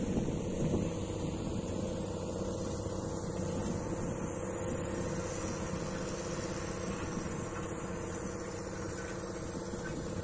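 John Deere 6210R tractor's six-cylinder diesel engine running steadily under load as it pulls a field implement across tilled ground.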